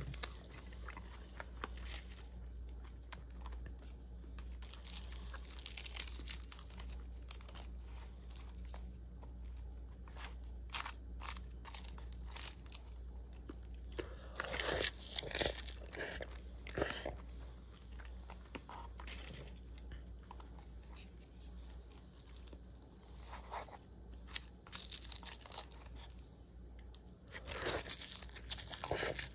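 Close-up eating sounds: chewing and crunching of a natto and raw bonito rice bowl with crisp nori seaweed, with a wooden spoon stirring and scraping in the plastic bowl. The sounds come in short bursts, loudest about halfway through and near the end.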